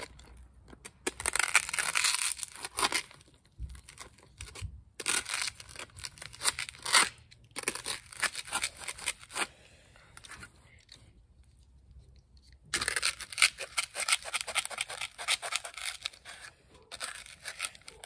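A blade sawing through a thick foam board, a scratchy tearing rasp of quick back-and-forth strokes in several spells, with a pause of a couple of seconds past the middle.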